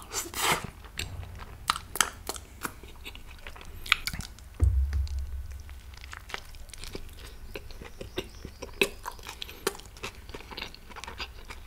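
Close-miked chewing and biting of a soft paneer shawarma wrap in kuboos bread, with many short wet clicks and smacks of the mouth. A single low thump about four and a half seconds in is the loudest sound.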